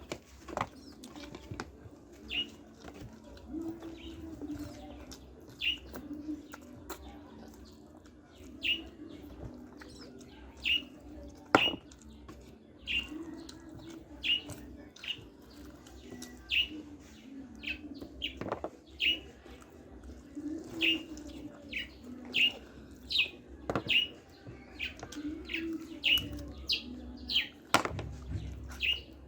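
A bird chirping over and over, short falling chirps about once a second, over a low steady hum, with a few sharp clicks now and then.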